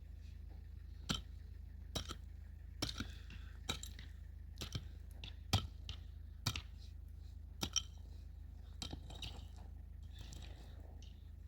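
A series of sharp clicks and light knocks at uneven intervals, roughly one a second, over a steady low hum.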